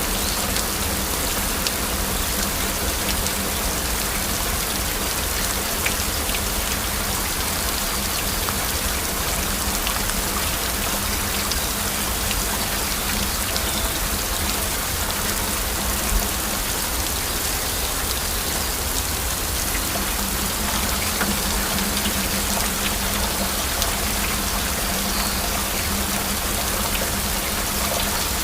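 Steady heavy rain, a dense even hiss with individual drop impacts ticking through it.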